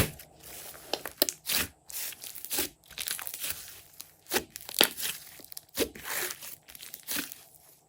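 Glossy slime being kneaded and stretched by hand: irregular sticky pops, crackles and short tearing squelches, with a sharp pop at the very start.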